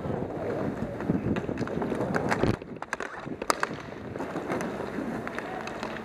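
Wind rushing over the microphone of a player skating in a roller hockey game. About two and a half seconds in the rush drops away and a few sharp clicks stand out, then the rush returns.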